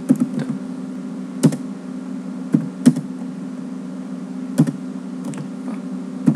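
Computer keyboard keys pressed one at a time: a handful of separate clicks with pauses between them, over a steady low hum.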